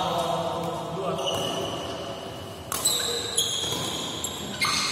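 Badminton rally: racket strings striking a shuttlecock, with two sharp hits in the second half, and court shoes squeaking on the synthetic court mat between them, echoing in a large hall.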